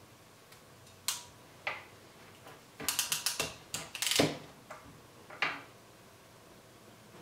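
Ratcheting crimp tool (JX-1601) crimping insulated wire connectors: a couple of single clicks, then a quick run of ratchet clicks and a louder snap about four seconds in, with one more click a second later.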